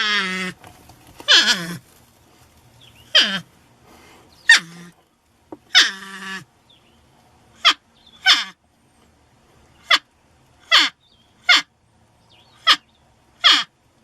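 Porcupine crying in a series of about a dozen whining calls, each sliding steeply down in pitch. The first few are drawn out and the later ones are short squeaks, coming roughly once a second.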